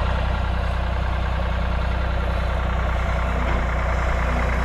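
Tractor engine running steadily at a low, even idle, close by.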